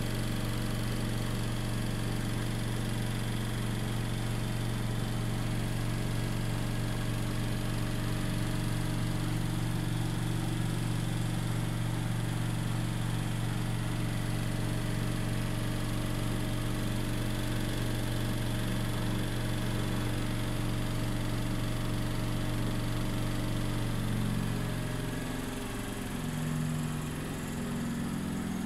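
An engine running at a steady speed; near the end its pitch wavers and shifts and it gets slightly quieter.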